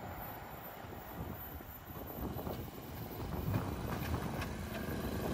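Light road traffic over a railway level crossing: motorcycle engines and a car driving across, growing louder from about two seconds in as motorcycles pass close.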